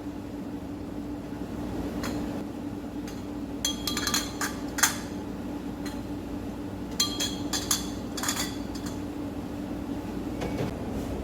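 Dishes and utensils clinking in two short clusters, one about four seconds in and another about seven seconds in, over a steady low hum.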